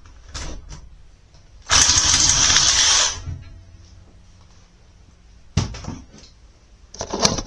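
Reciprocating saw (Sawzall) running for about a second and a half, cutting through a stuck steel drive chain, then stopping. Scattered metal knocks and clanks before and after.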